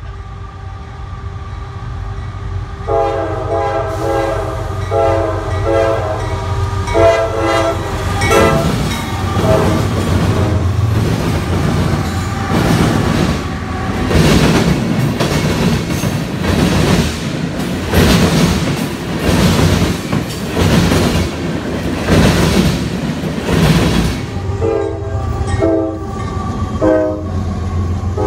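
A CSX freight train's diesel locomotive air horn sounding a series of chord blasts, under the low rumble of the diesel engines. The horn gives way to the loud, repeating clatter of the freight cars' wheels over the rail joints as the cars roll past, and a few shorter horn blasts come near the end.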